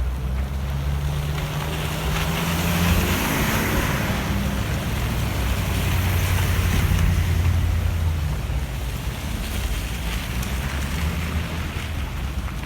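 Wind buffeting the microphone over street traffic in a snowstorm: a vehicle's engine rises in pitch in the first few seconds as a hiss of tyres on the wet road swells and fades, with a steady low rumble beneath.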